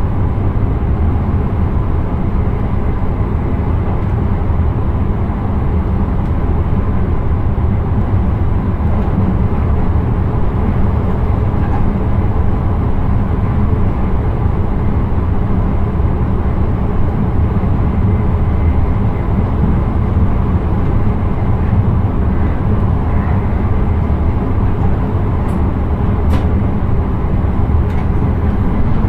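Steady rumble of an intercity train running along the line, heard from inside the driver's cab: wheels rolling on the rails and traction noise, even throughout. A few faint clicks come near the end.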